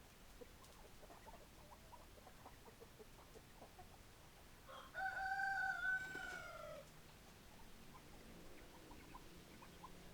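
A rooster crows once, about five seconds in: one long call of about two seconds that drops in pitch at the end. Faint short clucks or pecks from chickens come and go around it.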